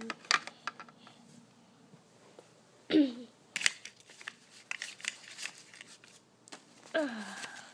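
Small plastic toys being handled and set down on paper and carpet: a string of light clicks and taps, the sharpest about three seconds in.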